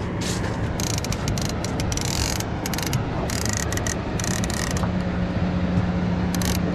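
Boat motor running at a steady speed: a continuous low mechanical hum with noise that gets a little stronger about five seconds in, under gusty rushing noise.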